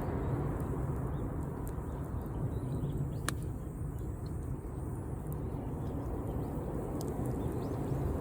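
Campfire burning: a steady low rumble with a few scattered sharp pops, the clearest about three seconds in.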